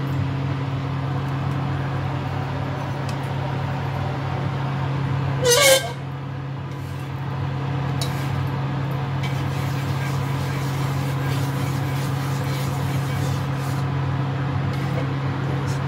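Induction cooktop running with a steady hum from its cooling fan and coil as a wok with a little oil heats on it. About five and a half seconds in comes one short, loud scrape, likely the spatula going into the wok.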